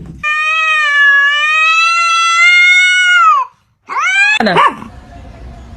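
A pet's long, drawn-out howl lasting about three seconds and falling in pitch at its end, then, after a short break, a second shorter call that rises sharply.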